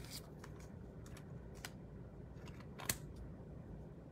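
About half a dozen faint, short clicks and ticks over a low steady hum, the loudest nearly three seconds in: light handling of trading cards and their plastic packaging.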